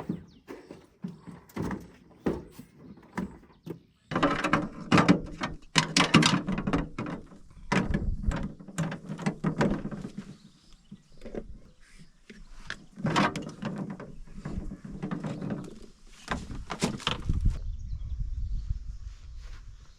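Irregular knocks, thuds and clatter, in clusters, with a low rumble near the end.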